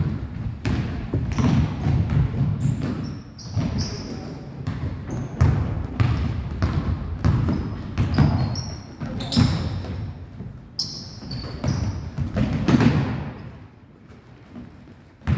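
Basketball dribbled on a hardwood gym floor, with players' footfalls and sneakers squeaking on the court, echoing in the gym. It quietens briefly near the end.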